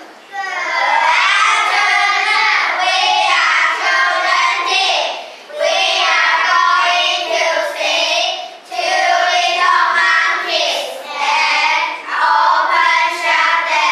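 A small group of young children singing an English children's song together, in phrases with short breaks between the lines.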